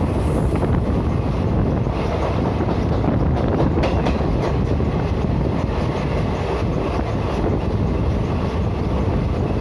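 A moving train's steady rumble of wheels on rail, with a few faint clicks about four seconds in.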